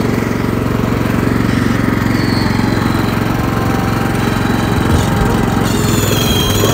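Massey Ferguson ride-on lawnmower's engine running steadily under load as it drives across the lawn. Near the end a high-pitched squeal joins in, which the owner traced to the drive belt trapped under a pulley.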